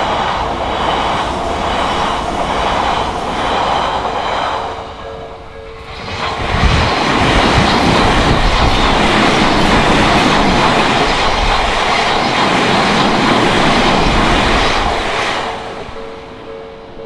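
Odakyu Odawara Line trains passing over a level crossing, wheels clattering on the rails, with the crossing's warning bell ringing steadily. The train noise eases about four seconds in. A louder pass starts about six seconds in and dies away near the end.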